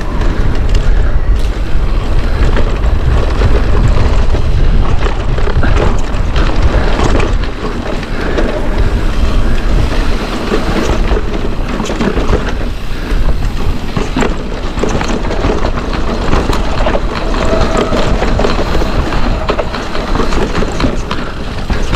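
Wind rumbling on an action-camera microphone while a mountain bike rattles and clatters over a rocky trail, with many quick knocks from the wheels and frame striking rock.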